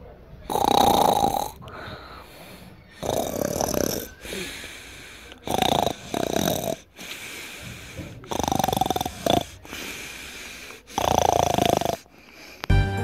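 A person snoring: five snores, each about a second long, coming about every two and a half seconds.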